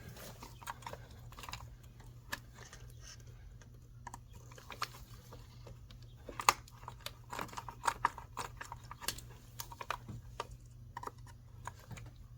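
Irregular small plastic clicks, taps and scrapes as a trim tool is worked around a stuck ignition coil boot to pry it out of the spark plug well. A steady low hum runs underneath.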